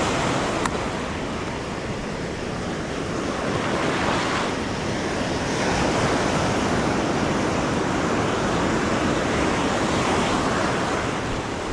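Ocean surf washing onto a beach, a steady rush that swells several times as waves break, with wind buffeting the microphone.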